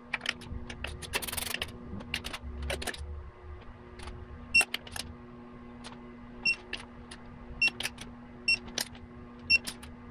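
Ratchet of a digital torque wrench clicking as it tightens the intake manifold bolts on a Subaru EJ25 boxer engine: sharp clicks in short runs and singles, a few with a ringing metallic note, over a faint steady hum.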